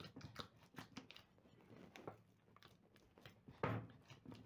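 Faint, irregular sticky squishing and smacking of soft bread dough being kneaded by hand as margarine is worked into it, with a slightly louder slap about three and a half seconds in.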